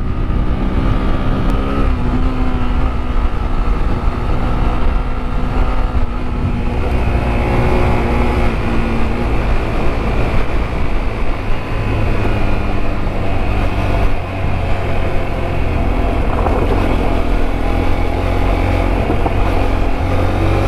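Sinnis Terrain T125's 125 cc single-cylinder engine running under way off-road, its pitch dropping and rising with the throttle and climbing near the end, over a heavy low rumble of wind and rough ground.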